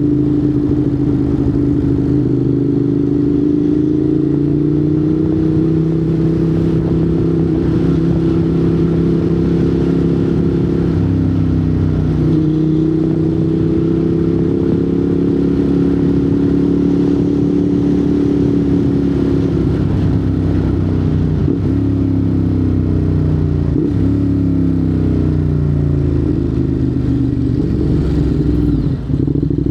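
Ducati Monster 821's 821 cc L-twin engine running through a Termignoni exhaust while riding, its pitch rising and falling gently with the throttle. The pitch drops gradually over the last third as the bike slows, with a brief dip in sound just before the end.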